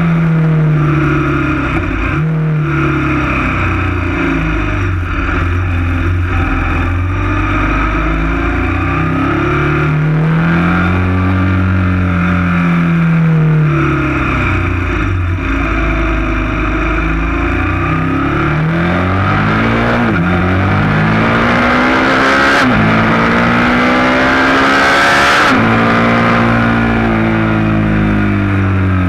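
KTM 1190 Adventure S's V-twin engine under way on a climb, its pitch rising under throttle and dropping again with each gear change or roll-off, with several quick rising sweeps in the second half. A few seconds of rushing noise come in over the engine past the middle.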